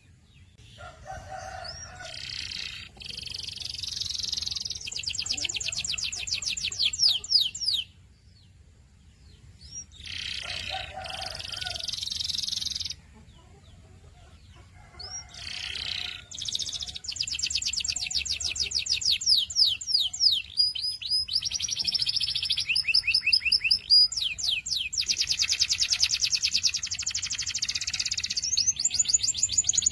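Canary singing: phrases of fast, evenly repeated trill notes, broken twice by pauses of a second or two.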